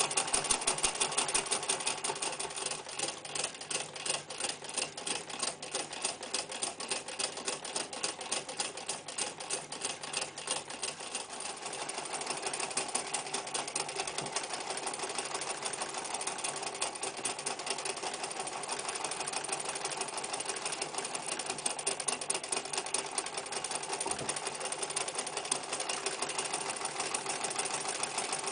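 Necchi Lycia electric sewing machine running and stitching with a fast, even beat of the needle. About twelve seconds in, the run steadies and gets a little quieter.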